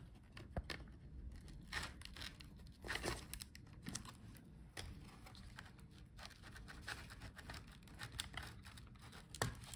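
Faint, irregular small clicks and scrapes of fingertips and a plastic pry tool working the cooling fan's cable connector loose from its socket on a Lenovo ThinkPad E14 Gen 2 motherboard.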